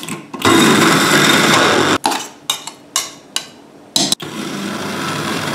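Small electric spice grinder running, grinding garlic, ginger and lemongrass into a paste: a steady run of about a second and a half, then several short pulses, then a steady run again from about four seconds in.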